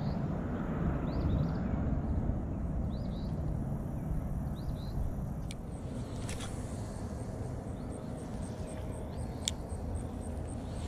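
Outdoor ambience dominated by a steady low rumble, with short high chirps from a small bird every second or two. A few sharp clicks come from the spinning reel as the lure is cast and the reel is handled, about halfway through and near the end.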